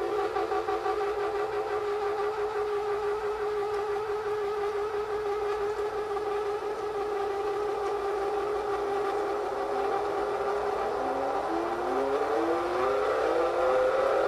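Experimental improvised music: a sustained droning tone with strong overtones holds one pitch. From about two-thirds of the way in, several siren-like tones glide upward over it and the sound grows louder.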